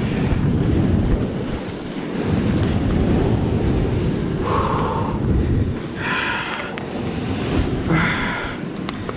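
Wind buffeting the microphone with a heavy, uneven low rumble, over surf washing on the rocks.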